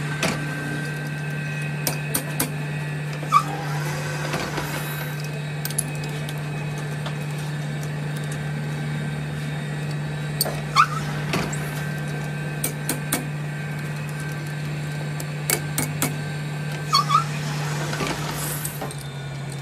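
Steady machine hum in a metal-turning workshop, with scattered sharp metallic clicks and taps as a lathe's three-jaw chuck is tightened on a brake caliper pin with a chuck key. A few short squeaks are heard, around a second in, three seconds in, eleven seconds in and seventeen seconds in.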